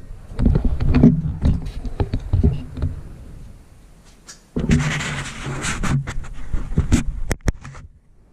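Handling noise from a camera being moved and set down: knocks, clicks and low rumbles, then about a second and a half of rubbing against the microphone about halfway through, and a few sharp clicks near the end.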